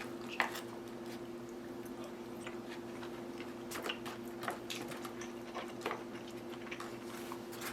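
Quiet chewing with scattered small clicks from a mouthful of rehydrated chicken and vegetables, over a steady low hum.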